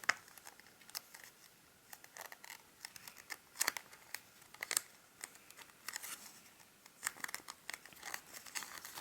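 Square origami paper being folded and creased by hand: irregular short crinkles and scrapes as fingers press along the folds.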